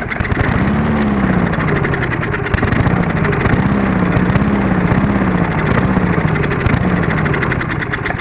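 Briggs & Stratton four-stroke engine of a Murray Sprint push mower running rough, its speed surging up and down about once a second. This fits an engine living only on primer fuel because the carburettor is not drawing fuel up, as the repairer believes.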